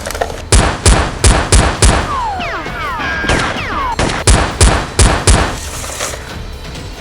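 Gunfire sound effects: two rapid volleys of about five sharp shots each, the first about half a second in and the second about four seconds in, with short falling whistling tones between them.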